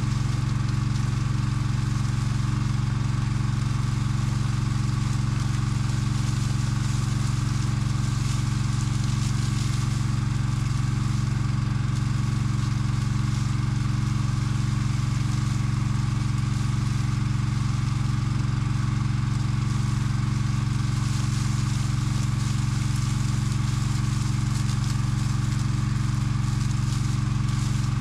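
Engine on a firefighting crawler rig running steadily at constant speed while it pumps water, with a faint hiss of water spray from the hose nozzle.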